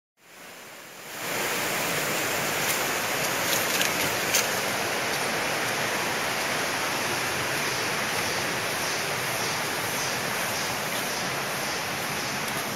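Steady rushing of a forest stream, fading in over the first second or so, with a few short clicks about three to four seconds in.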